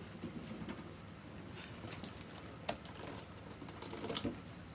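Light handling noises: scattered rustling and tapping of packaging as boxed action figures are moved about, with one sharp click about two and a half seconds in.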